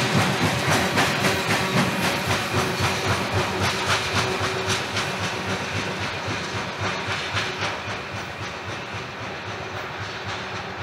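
Norfolk Southern freight train cars rolling past, their wheels clicking steadily over the rail joints at about four clicks a second, the sound slowly fading as the train moves on.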